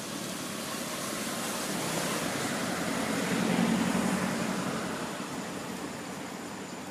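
A motor vehicle passing by, its engine and road noise swelling to a peak about midway and then fading away.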